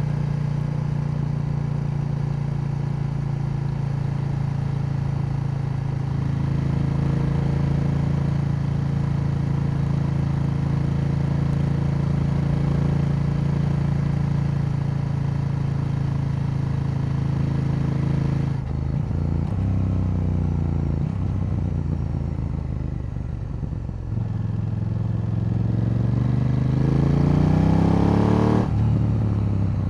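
KTM 890 Duke L's parallel-twin engine running at a steady cruise, its pitch falling as the throttle is eased off about two-thirds of the way through. Near the end it revs up in a long rising sweep through a gear, then the throttle is shut off suddenly.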